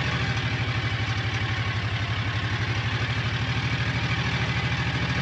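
Engine of a small ridden farm vehicle running steadily at low revs, with a rapid, even pulse.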